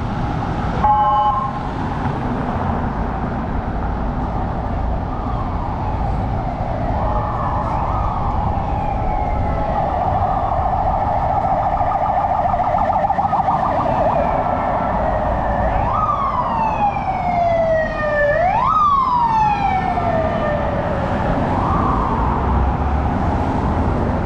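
Emergency-vehicle siren, apparently from a police van on the street, sounding over steady city street noise. It moves between slow rising-and-falling wails and a fast warble, with two sharp rises each followed by a long fall later on. A short loud horn-like blast comes about a second in.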